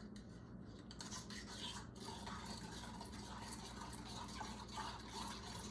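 Faint, irregular scraping and swishing of a utensil stirring warm water, yeast and sugar together in a small bowl.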